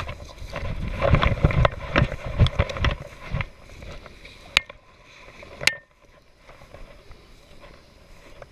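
Footsteps crunching through dry tall grass and brush, with cedar branches rustling against clothing and gear, for the first three seconds or so. Two sharp clicks follow, about a second apart, and then the sound drops to a low, quiet rustle.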